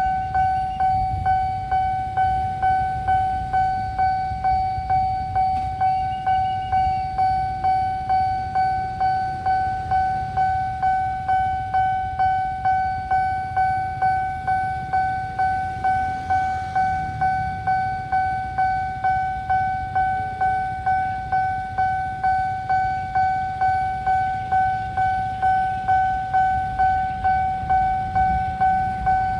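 Railway level-crossing warning alarm ringing: a high electronic bell tone of one steady pitch, struck over and over about twice a second, each stroke fading before the next. A low rumble runs underneath.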